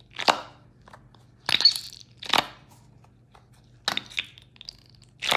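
Mesh stress ball filled with gel beads squeezed by hand, a short squishing crunch with each squeeze, about five times with pauses between.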